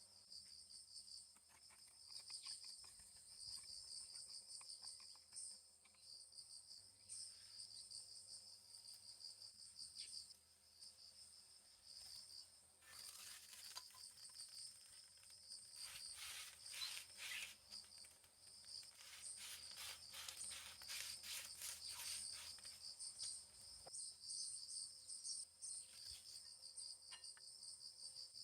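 Faint, steady chirring of crickets or similar insects, a high pulsing trill that never stops. Around the middle a run of rapid faint clicks or crackles joins in for several seconds.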